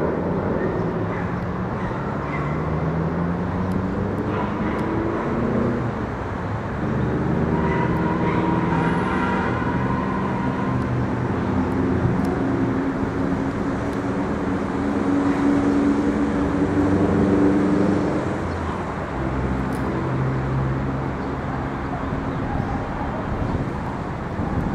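Jet engine noise from a Boeing 787 on approach with landing gear down, passing overhead and moving away: a steady rumble with several whining tones that slide slowly in pitch.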